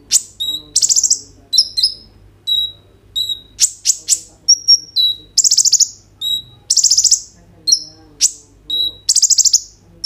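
Male copper-throated sunbird (kolibri ninja) singing loudly: a rapid series of sharp, high chirps and short whistles, broken by several buzzy rattling trills about half a second each.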